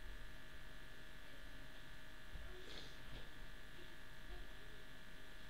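Quiet room tone with a steady electrical buzz, and one brief faint noise about halfway through.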